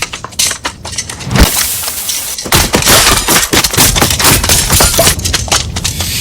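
AI-generated sound-effects track: a dense, loud run of crashes, breaking sounds and sharp bang-like impacts.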